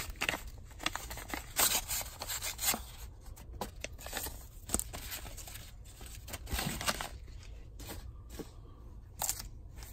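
A paper mailing envelope being handled and opened by hand: a run of irregular soft rustles, crinkles and small scrapes of paper, with a trading card in a clear plastic holder drawn out of it.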